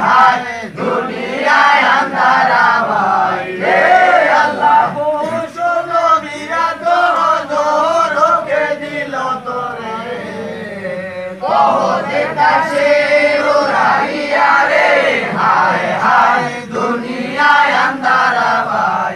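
Many voices chanting together in a loud group devotional chant, the sung lines rising and falling. The chant softens for a while in the middle and comes back at full strength about eleven and a half seconds in.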